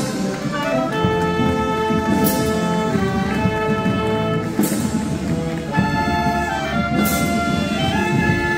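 Procession brass band playing a slow march in long held chords, with a crash every two and a half seconds or so.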